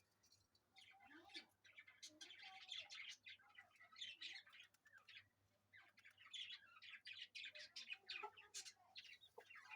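Three-day-old chicks peeping faintly: many short, high chirps in quick series, with a brief lull midway.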